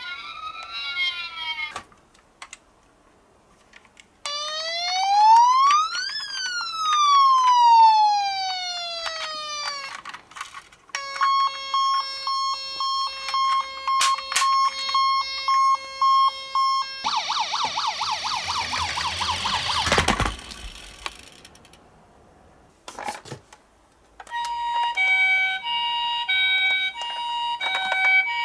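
Toy ambulance minicar's electronic siren cycling through several patterns with short pauses between them: one long rising-and-falling wail, a fast pulsing beep, a rapid warble, then a hi-lo note pattern near the end.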